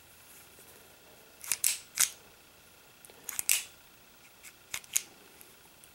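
Small sharp metal clicks from an Astra Cub .22 Short pocket pistol being worked by hand, in three groups of two or three clicks about a second and a half apart: the safety lever being moved and the trigger tried while the pistol is on safe.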